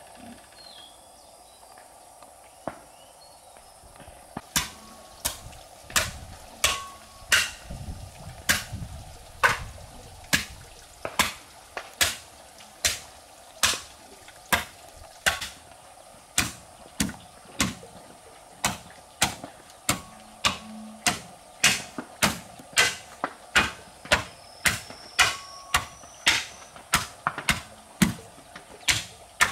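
Hammer blows struck in a steady rhythm, about three every two seconds, starting about four seconds in, some with a brief metallic ring after the strike.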